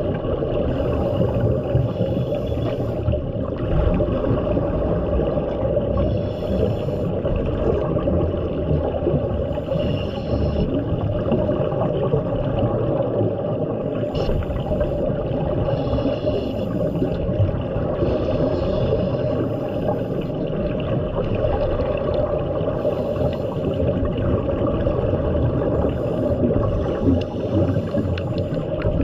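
Heard underwater: a steady low rumble, with a scuba regulator's exhaled bubbles gurgling out in short bursts every few seconds as the diver breathes.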